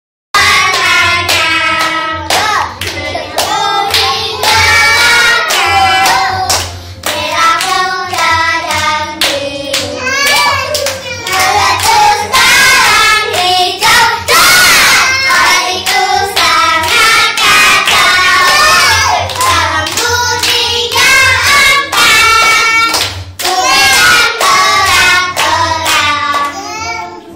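A group of young children singing a song together and clapping their hands along with it.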